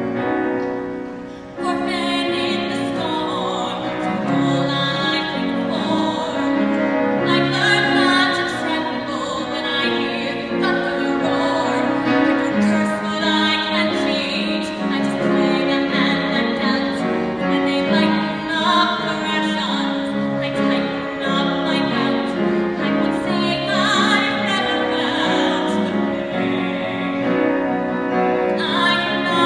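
A woman singing a musical-theatre song, holding long notes, with a short break for breath about a second and a half in.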